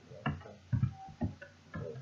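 Typing on a computer keyboard: about five separate keystrokes, unevenly spaced, each a short knock with a brief ring.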